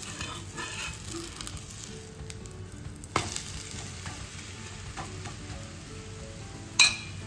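A besan chilla frying on a hot pan with a steady sizzle. There is a light click about three seconds in and a sharp clank near the end.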